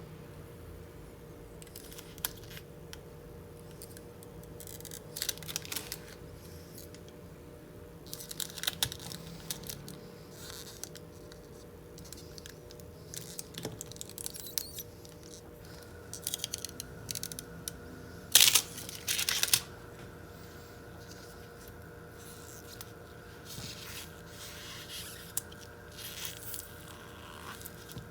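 Thin polarizer film being peeled off a laptop LCD panel, heard as scattered short tearing rasps with a loud pair about two-thirds of the way through.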